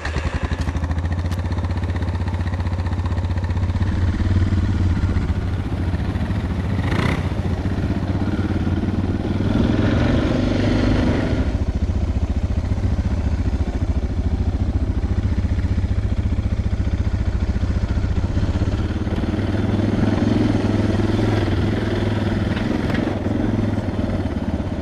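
Suzuki DR650 dual-sport motorcycle's single-cylinder four-stroke engine running steadily under way, swelling a few times as the throttle opens. There is a sharp knock about seven seconds in.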